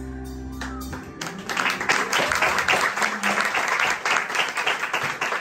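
A live band's final held chord rings for about a second and then stops, and an audience breaks into applause that continues to the end.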